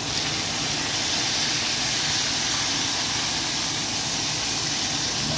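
Pieces of fish frying in hot oil in a pan: a steady sizzle.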